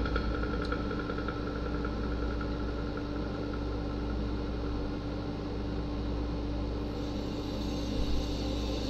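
A steady low rumbling drone with a held tone, settling from a louder passage in the first second.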